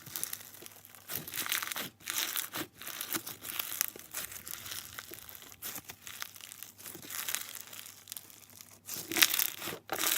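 Floam slime packed with foam beads being squeezed and kneaded by hand, giving irregular bursts of crunchy crackling, loudest a little after nine seconds in.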